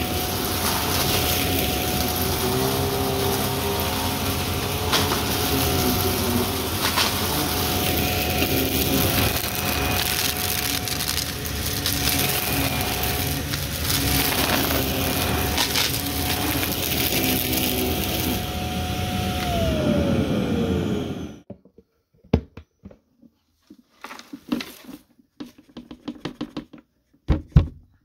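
Shark Navigator upright vacuum running with a steady motor whine while crunching up debris, then switched off after about twenty seconds, its whine falling as the motor spins down. A few scattered clicks and knocks follow.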